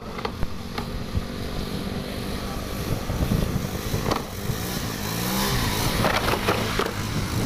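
Small motorcycle engine running at speed and being revved while the front wheel is held up in a wheelie, its pitch rising and falling around the middle.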